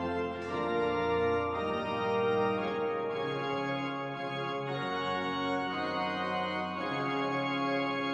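Organ playing slow, sustained chords over a held low bass note.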